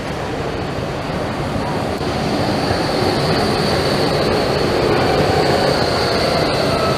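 Zurich VBZ tram passing close by on street rails: a steady rumble of wheels on track with a thin high whine, growing louder about two seconds in.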